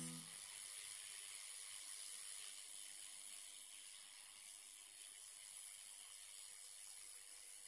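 Hot-air rework station blowing, a faint steady hiss of hot air aimed at a motherboard MOSFET to desolder it.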